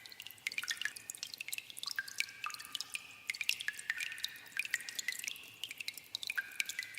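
Water dripping in a cave: many drops falling at irregular intervals, several a second, each landing with a sharp plink, and many leaving a short ringing note as they hit pools of water.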